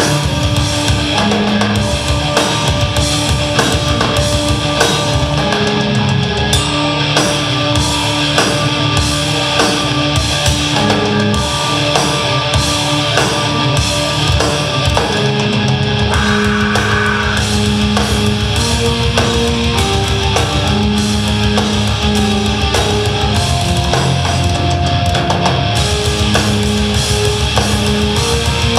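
Gothic metal band playing live, recorded from the audience: distorted electric guitars, keyboard and a fast-hitting drum kit, steady and loud.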